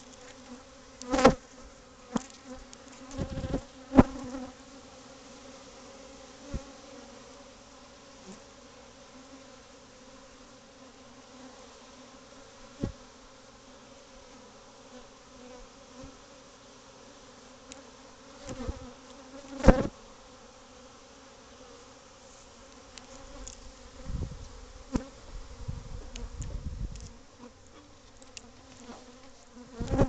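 A colony of honey bees buzzing steadily around their nest in a wall cavity, a dense low hum, agitated at being disturbed. A few sharp taps close to the microphone cut through it, about a second in, around four seconds and about two-thirds of the way through, and there is some low rumbling near the end.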